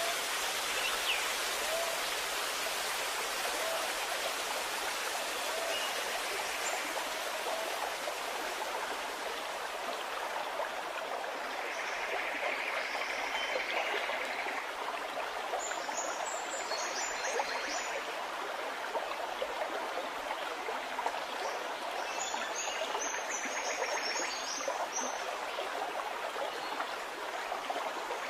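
Steady rushing hiss of noise, even throughout, with two short spells of faint high chirping in the second half.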